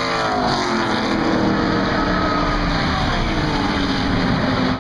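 Race car engines at speed passing by on a circuit, loud, their pitch falling as they go past.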